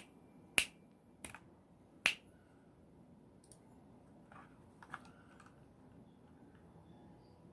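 A few separate keystrokes on a Royal Kludge RK61 mechanical keyboard with brown switches: four sharp clacks in the first two seconds, then only faint scattered ticks.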